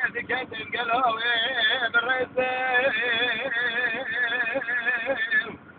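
A man singing unaccompanied in the Kurdish dengbêj style, long held notes with a wavering, ornamented pitch that break off just before the end, over the low hum of the vehicle he rides in.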